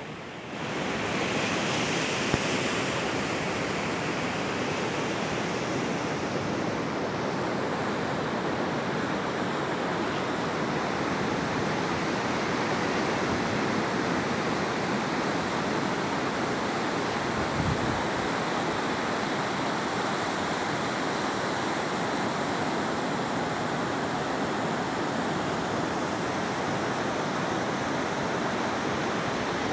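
Ocean surf washing on a beach, a steady rushing noise of waves that cuts in suddenly at the start and holds on without a break.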